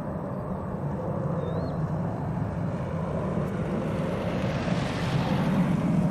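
Boeing 727 climbing out at takeoff power on its three Pratt & Whitney JT8D turbofans: a deep, steady jet engine noise that grows louder throughout, with a hissing top end that swells in the second half.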